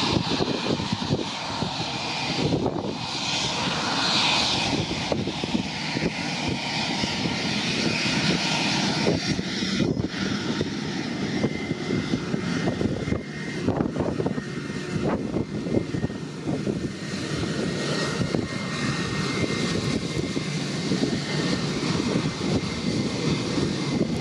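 Airbus A320's IAE V2500 turbofan engines running at low taxi power as the airliner taxis: a steady jet rumble with a high whine that settles to a lower steady pitch about halfway through.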